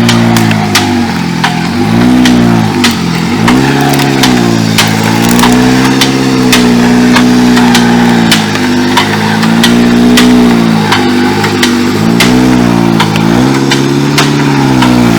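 Off-road car's engine under load, its revs dropping and climbing again several times as it labours, with many sharp clicks and knocks over it.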